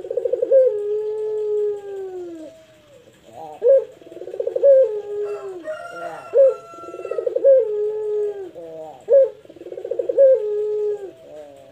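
A pelung-type puter dove (domestic ring-necked or Barbary dove) cooing four times. Each coo is a short accented note, then a fast rolling trill that drops into a long, drawn-out lower note.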